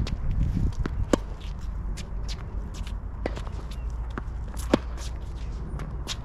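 Tennis balls struck by racquets and bouncing on the court during a groundstroke rally: a series of sharp pops, the loudest about a second in and near five seconds, over a steady low rumble.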